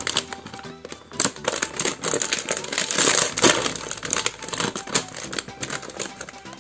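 Foil chip bag crinkling and crackling as it is pulled open by hand, a dense run of crackles loudest about halfway through.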